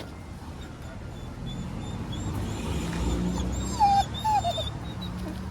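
A dog whining twice in short, falling whimpers near the end: a dog held on the leash, eager to meet another dog that has just passed.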